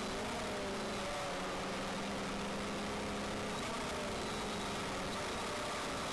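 Quadcopter drone's electric motors and propellers whirring steadily, with several tones that waver slightly in pitch as the motors adjust speed.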